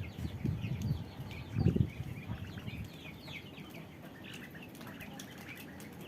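A flock of young poultry (ducklings, chicks and turkey poults) peeping, with many short, high cheeps overlapping throughout. Low thumps and rustling sound in the first two seconds, the loudest about 1.7 seconds in.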